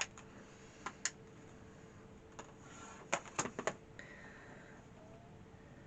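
Sharp clicks and taps of acrylic quilting rulers and a rotary cutter handled on a cutting mat: two about a second in, another a little later, and a quick cluster of four or five about three seconds in.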